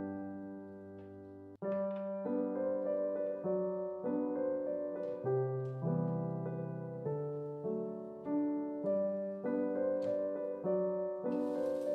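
Soft solo piano music playing a gentle melody over chords. It cuts out briefly about a second and a half in, then starts again.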